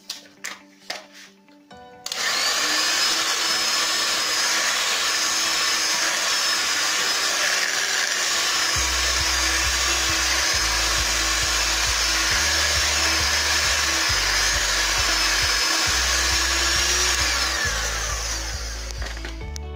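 Electric hand mixer running steadily, its whisk beating cake batter in a bowl, with a steady whine. It starts about two seconds in after a few clinks, and winds down with a falling pitch near the end.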